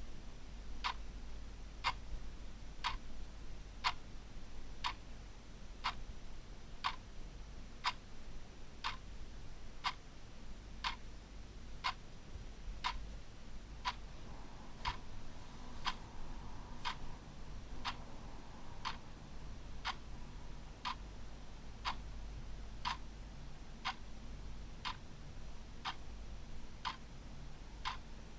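Clock ticking steadily, one sharp tick a second, over a faint low hum.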